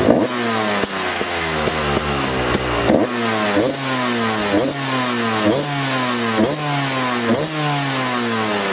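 KTM EXC two-stroke single-cylinder engine revved in short throttle blips, heard at the exhaust: the revs snap up and fall back, once at the start and then about once a second from about three seconds in.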